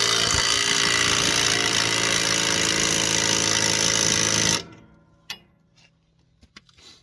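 Impact wrench with a 24 mm deep socket hammering without a break to run off a nut, then stopping abruptly about four and a half seconds in. A few light clicks follow.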